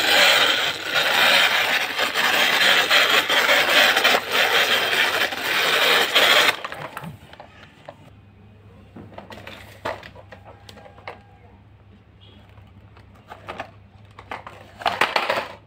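Plastic toy truck's wheels rolling fast over hard floor tiles, a dense rattle lasting about six seconds. After that come a few scattered knocks and clicks, then another short burst of rolling near the end.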